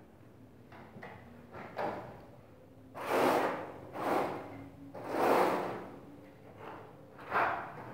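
Notched trowel scraping through tile mortar on a concrete floor as the mortar is combed into ridges, in a series of swishing strokes about a second apart, the loudest from about three seconds in.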